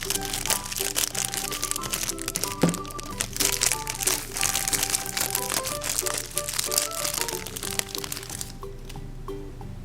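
Surprise egg wrapping crinkling and cracking as eggs are opened, with one sharper crack about three seconds in; the crinkling stops about a second before the end. A simple keyboard tune plays throughout.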